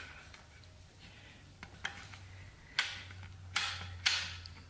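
TH400 transmission's manual valve and shift selector being moved by hand on the valve body, giving short metallic clicks with a little clatter. A few sharp ones come in the second half, about half a second to a second apart. A faint steady low hum runs underneath.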